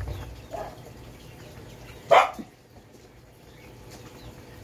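A dog barking in the background: a faint bark about half a second in, then a louder, sharper bark about two seconds in.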